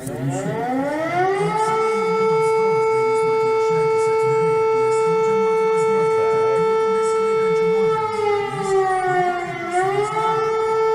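Civil defense siren winding up over about a second and a half, then holding one steady pitch. Near the end it sags in pitch and climbs back.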